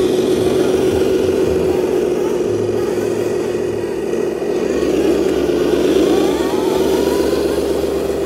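1/14-scale radio-controlled trucks driving, giving a steady, loud motor whine with a few brief rises in pitch partway through.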